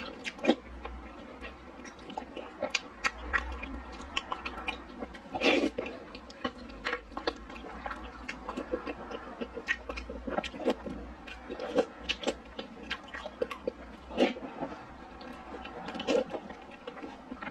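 Close-up eating sounds: slurping spoonfuls of milk-tea purple rice soup and chewing glutinous rice balls, with an irregular run of wet mouth clicks and smacks, a few of them louder.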